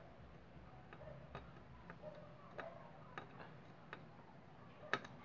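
Faint, irregular light ticks and clicks of small hand tools against a motherboard during capacitor soldering work, with a sharper double click near the end.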